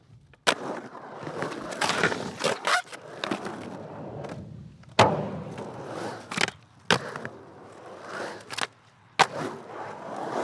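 Skateboard wheels rolling and rumbling on concrete, swelling and fading as the board passes, with several sharp clacks of the board hitting the ground: about half a second in, loudest about five seconds in, and again a little after nine seconds.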